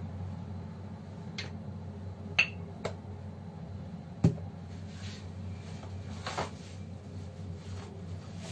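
Glass sauce bottles and jars being handled and set down on a kitchen counter: a handful of short knocks and clinks, the two loudest about two and a half and four seconds in, over a steady low hum.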